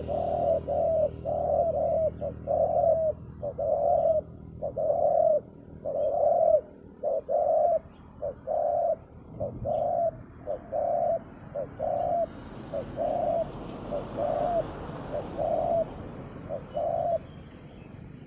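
Spotted doves cooing: a long run of low, repeated coo notes, about one to two a second, that stops about a second before the end. Faint high chirps of small birds in the first few seconds.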